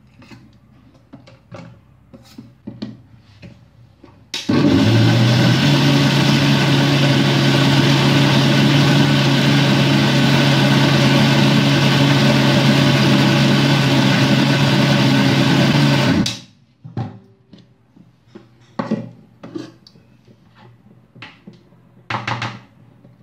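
Electric mixer grinder with a steel jar grinding soaked grain and a little water into idli batter. The motor starts about four seconds in with a brief rise in pitch, runs steadily and loudly for about twelve seconds, then cuts off. Light knocks of the steel jar and lid being handled come before and after.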